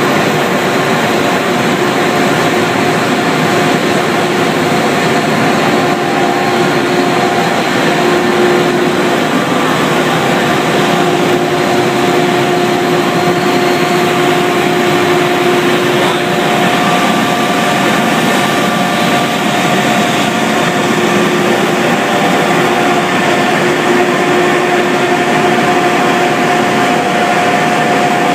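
Machinery of a floating fish-feed extrusion line running steadily: a dense, loud mechanical noise with a steady hum in it.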